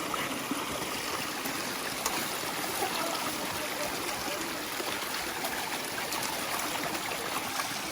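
Stream water running steadily, a continuous babbling flow.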